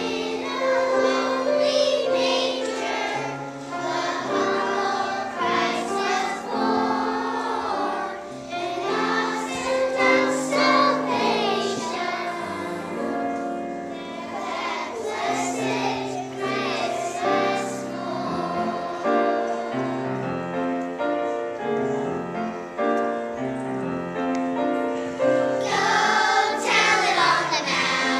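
Children's choir singing a song together in held, sustained notes.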